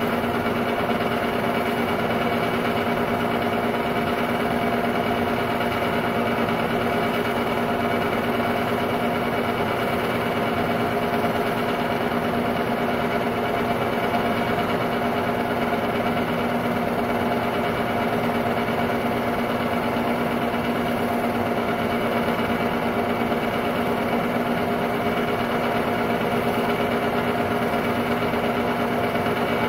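Technicolor 810 8mm film-loop projector running: a continuous mechanical whir of its motor and film transport, with several steady tones and no change in level.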